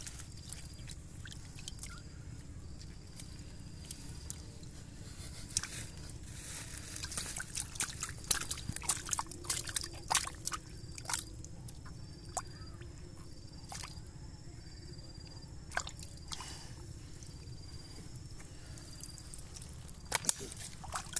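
Bare hands groping through shallow muddy water and wet leaf litter: irregular splashes, squelches and drips, busiest in a quick run about a third of the way in, with a couple of sharp splashes near the end.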